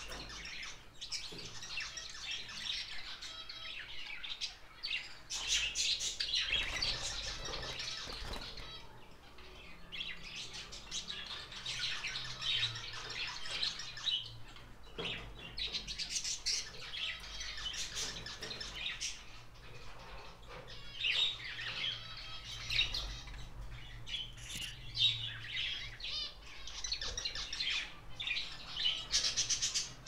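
Small cage birds in a mixed aviary of budgerigars, finches and Bourke's parakeets chirping and squawking, in repeated bouts of rapid high chatter a few seconds long.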